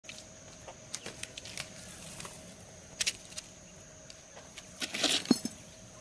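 Quail pecking and scratching in dry sand, with scattered light clicks. About five seconds in comes a brief burst of scuffling and a sharp knock, as the propped hollow clay brick of a deep-hole quail trap falls.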